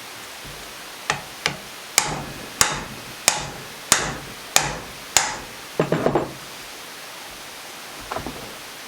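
Hammer blows on a hand impact driver set on a stuck cylinder stud nut of a 1979 Suzuki DS125 two-stroke engine: two lighter taps, then six hard, ringing strikes about two-thirds of a second apart, followed by a short rattle and one more light knock near the end.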